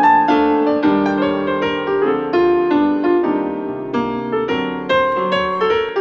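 Piano music, a melody over chords with new notes struck a few times a second, played back through a portable Bluetooth speaker and recorded through the air.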